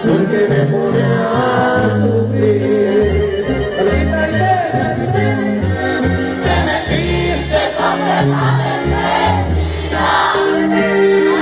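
Live regional Mexican band music played loud at a concert: a melody over a bass line stepping between low notes, with some singing.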